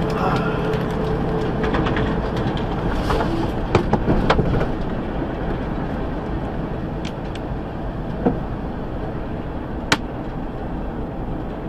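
Steady road and engine noise inside a semi-truck cab at highway speed, with a few sharp clicks, the sharpest about four and ten seconds in.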